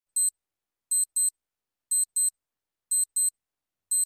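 Clock tick-tock sound effect counting down a quiz answer timer: a pair of short, high-pitched ticks about once a second.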